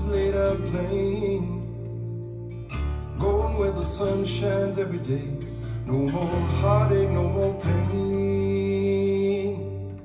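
A song with a singing voice over guitar and a steady bass, played back from a type II cassette recorded on a Nakamichi 680 and played on a restored Nakamichi ZX-7 deck with 70 µs equalisation.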